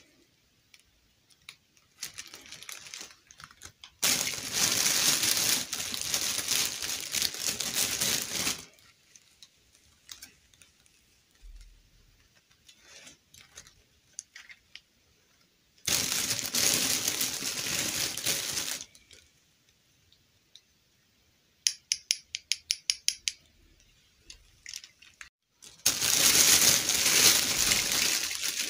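Clear plastic bag crinkling and rustling as hands rummage in it, in long spells of a few seconds each. Between them, a quick even run of about a dozen small clicks.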